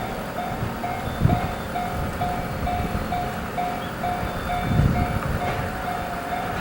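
Japanese level-crossing alarm ringing its electronic bell at a steady two strokes a second. A freight train's low rumble swells under it about five seconds in as the container wagons are shunted across.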